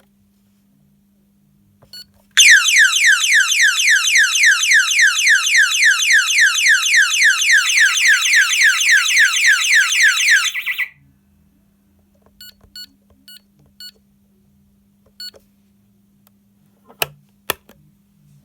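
Intruder alarm sounder going off in full alarm: a loud siren of rapid falling sweeps, about four a second, that runs for about eight seconds and cuts off suddenly. A few short keypad beeps come before and after it, and two sharp clicks near the end.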